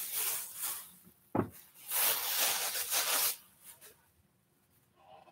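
Clear plastic bag crinkling and rustling as a football helmet is pulled out of it, in two long stretches. Between them, about a second and a half in, comes one sharp knock.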